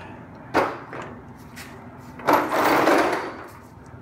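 A floor jack raising a car's front subframe and steering rack: a sharp metal knock about half a second in, a few lighter clicks, then about a second of loud scraping.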